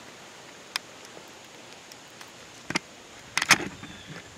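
Handling noise of the camera being moved and repositioned: a few scattered clicks and knocks over a low steady hiss, the loudest cluster about three and a half seconds in.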